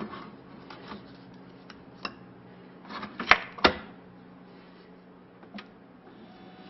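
Plastic clicks and clacks of a Keurig single-cup coffee maker being handled as a K-cup is loaded and the lid handle is pushed shut. The loudest are two sharp clacks close together about three and a half seconds in.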